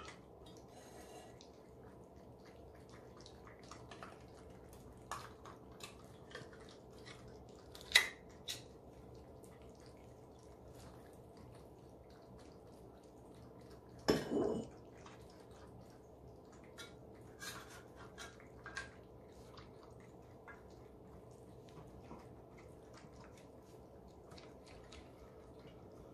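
Several cats eating wet food from bowls: scattered small wet clicks and smacks of chewing and licking, with two louder knocks against a bowl about 8 and 14 seconds in. A faint steady hum runs underneath.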